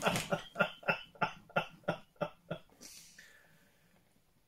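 A man laughing: a run of about nine short bursts, roughly three a second, dying away, then a breathy exhale about three seconds in.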